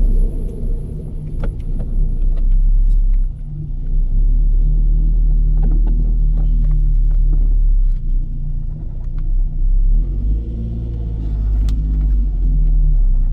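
Zastava 750's small rear-mounted four-cylinder engine running steadily, with a heavy low rumble.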